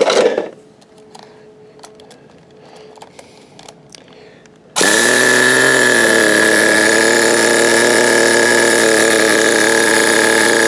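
Small glow-fuel engine of a nitro RC car running at a steady idle, kicking in abruptly about halfway through and holding one even pitch. Before it, a brief loud knock at the very start and a few faint clicks.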